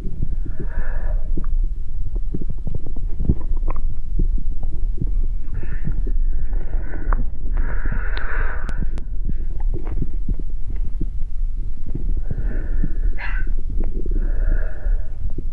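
Low, dense rumble of body-like sounds full of irregular thumps and clicks, with short breathy hisses a few times, around the middle and near the end.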